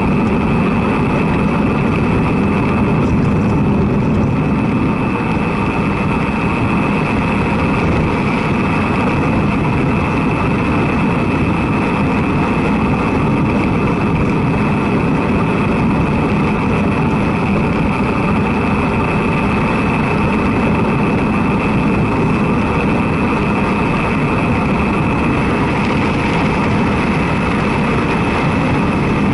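Steady rush of wind on the microphone of a road bicycle riding at speed, with the tyres humming on asphalt.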